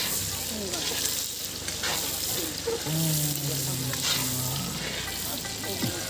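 Food deep-frying in hot oil: a steady sizzle with a few brief crackles.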